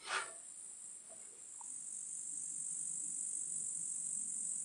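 Steady high-pitched trilling of an insect chorus, with a brief clatter right at the start; the trilling cuts off suddenly near the end.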